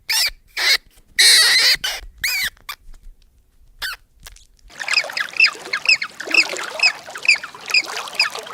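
High-pitched squeaky animal calls. A few separate arched calls come in the first couple of seconds, then a short pause, then a fast run of short squeaks at about three a second.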